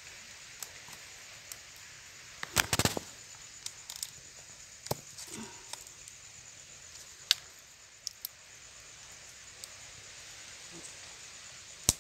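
Stiff cardboard being handled while string is threaded through its frayed edge: scattered sharp clicks and crackles, with a quick cluster of snaps about two and a half seconds in as the loudest moment.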